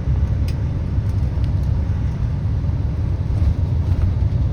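Tour bus driving along the road, heard from inside the cabin: a steady low rumble of engine and road noise.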